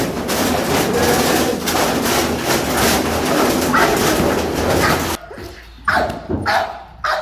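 A dog barking in short, separate bursts with some whining, over a dense rushing noise that cuts off abruptly about five seconds in.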